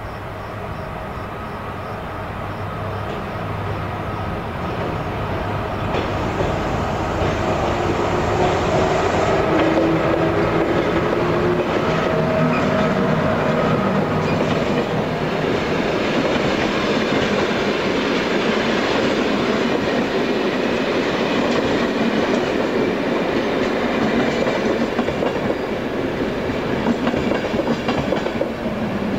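Locomotive-hauled passenger train rolling into the station past the platform, growing louder over the first several seconds, then a steady rumble with wheels clicking over rail joints. Several falling tones sound while it slows.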